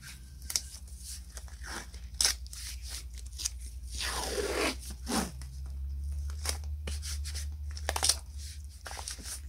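Masking tape being pulled off its roll, with one long ripping screech that falls in pitch about four seconds in, amid crackles of the tape being torn and pressed flat onto a metal plate.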